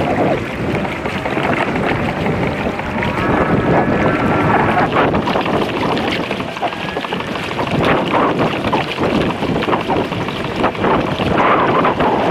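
Wind buffeting the microphone, with water sloshing against the kayak's hull and a few light knocks.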